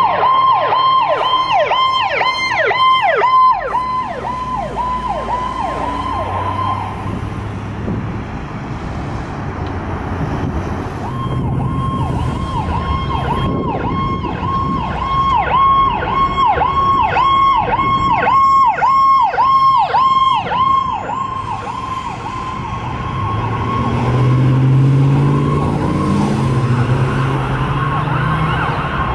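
Powercall electronic sirens on passing fire apparatus sounding a fast yelp: a tone near 1 kHz that dips and returns about three to four times a second. The yelp breaks off after about seven seconds, leaving diesel engine and traffic rumble, then comes back for about ten seconds before giving way to a steadier siren tone and heavy truck engine noise near the end.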